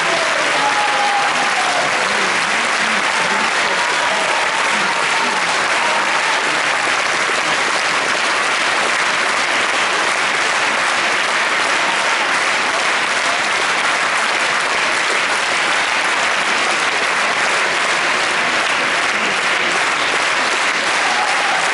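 A large theatre audience applauding steadily during curtain-call bows.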